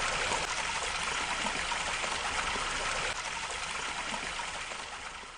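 Running water trickling steadily, fading out near the end.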